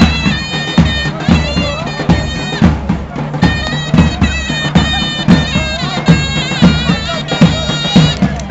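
Davul and zurna playing a folk dance tune: a reedy zurna melody that bends and trills, over steady davul drum beats about twice a second.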